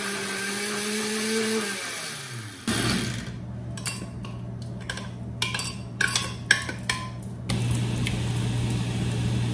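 Blender motor winding down after being switched off, its hum falling in pitch over about a second. Then scattered clinks and scrapes as the creamy ricotta is tipped and scraped from the glass blender jar into a glass bowl.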